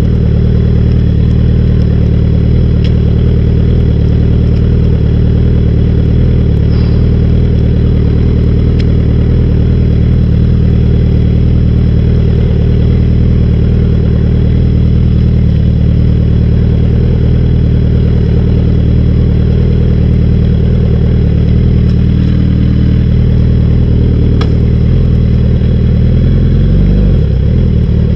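Motorcycle engine running at a steady, low speed while the bike rides along, with a few faint ticks. Near the end the engine note wavers and changes pitch.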